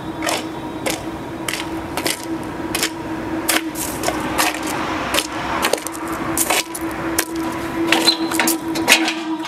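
Footsteps of a person walking on pavement, sharp steps at about two a second, over a steady low hum.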